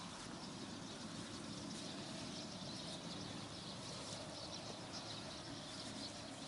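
Quiet outdoor ambience: a faint, even hiss with no distinct events.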